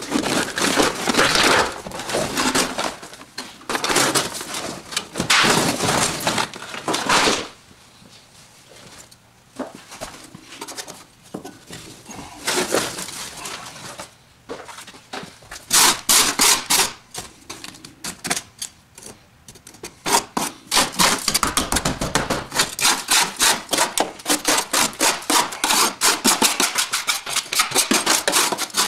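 Old floor mat and its backing padding being torn and dragged up off a rusted car floor pan, with loud rustling and ripping for the first several seconds. Toward the end come quick runs of short scraping strokes, several a second, as debris is scraped about on the bare rusty floor.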